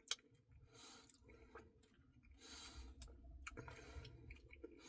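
Faint mouth sounds of eating ice cream: soft chewing with a few small clicks, in near silence.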